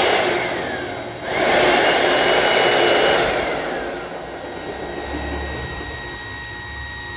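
Hoover WindTunnel 3 Pro Pet upright vacuum switched off, its motor winding down with a falling whine, then switched back on about a second in. It runs at full speed for about two seconds, is switched off again and winds down with another falling whine, leaving a fainter steady hum.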